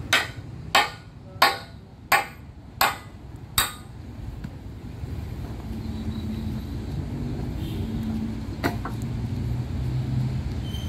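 Hammer striking steel bracing six times, about two-thirds of a second apart, each blow ringing briefly. Then a steady low engine hum, with one lighter knock near the end.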